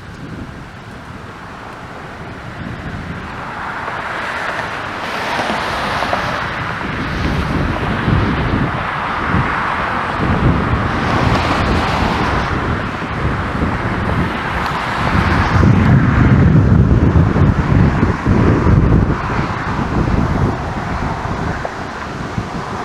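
Strong thunderstorm wind gusting hard and buffeting the microphone, building up over the first half and coming in uneven surges.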